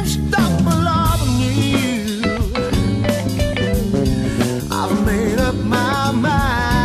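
Studio recording of a blues-rock band: electric guitar, bass guitar and drum kit playing together, with a male voice singing.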